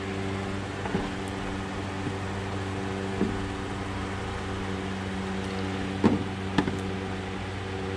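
Electric fan running with a steady hum, blowing on a car's radiator with the engine shut off, with a few faint clicks. No gurgling is heard from the coolant hoses, a sign that the air has been bled out of the cooling system.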